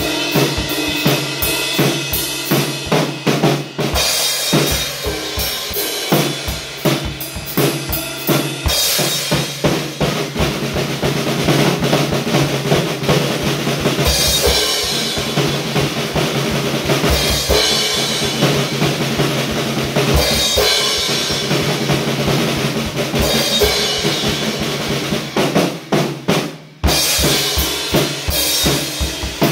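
Drum kit played solo with sticks: rapid strokes on the snare and toms over the bass drum, with cymbals ringing through much of the middle. The playing stops briefly near the end, then picks up again.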